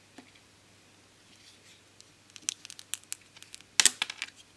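Pliers and a circuit board handled over a metal solder bath. It is nearly silent at first, then from about halfway comes a run of irregular sharp clicks and taps, with a louder cluster near the end.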